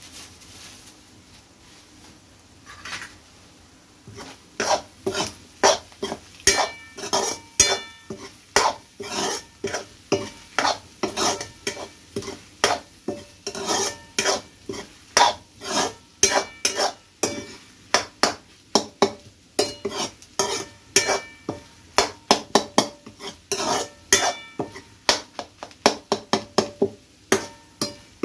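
A spoon stirring and scraping scrambled egg in a steel pan, knocking against the metal about twice a second, each stroke leaving a short metallic ring. The first few seconds are quieter, with a single knock, before the steady stirring starts.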